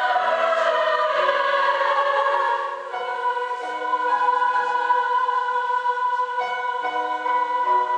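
Treble choir of girls' voices singing in harmony, full and loud at first, then softer with long held chords from about three seconds in.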